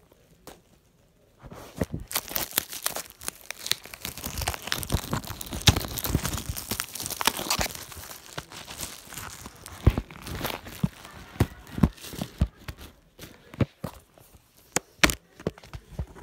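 Plastic shrink-wrap being torn and crinkled off a DVD case. A dense crackling run starts about a second and a half in, then thins to scattered sharp clicks and snaps in the second half.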